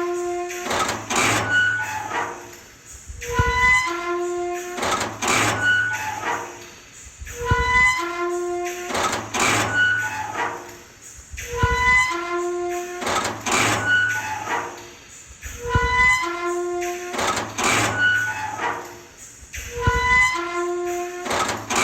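Squeaky door hinge creaks and door slams looped into a repeating pattern about every four seconds, five times over: each round the squeak steps between several pitches, then a few sharp slams land.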